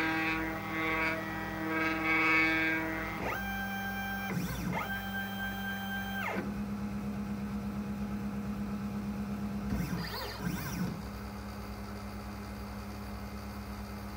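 X-Carve CNC router's stepper motors whining in steady pitched tones as the machine runs an automatic probing routine against a touch-off zero block to set its X, Y and Z zero. The pitch changes in steps, with short gliding ramps as the axes speed up, slow down and change direction, about three, six and ten seconds in.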